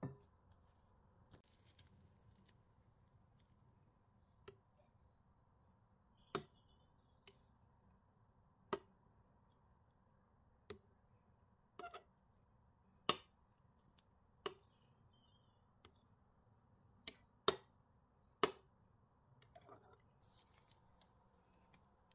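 A metal knife clinking against a glass baking dish as it swirls through soft ice cream mixture: about a dozen sharp clinks at irregular intervals.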